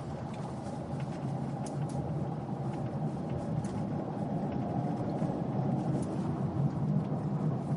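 Car engine and road noise heard from inside the cabin as the car climbs a hill: a steady low rumble with a few faint clicks.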